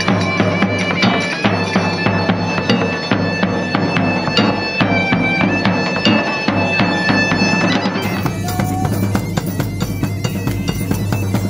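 Live medieval street music: a bagpipe plays a melody over its steady drone, with a large bass drum and a side drum beating time.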